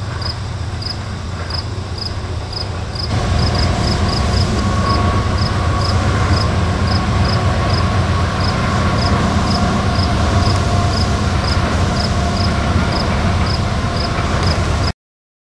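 Freight train with diesel locomotives passing, a steady deep rumble that grows louder about three seconds in, then cuts off suddenly near the end. A cricket chirps about twice a second throughout.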